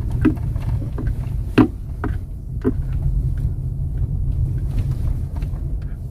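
Suzuki XL7 driving slowly over a rough road, a steady low rumble with a few short knocks, the loudest about a second and a half in.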